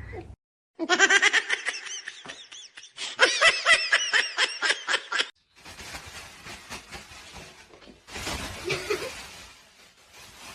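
Laughter: a run of quick, rising-and-falling pitched bursts lasting about four seconds. It then gives way to quieter rustling noise with small ticks.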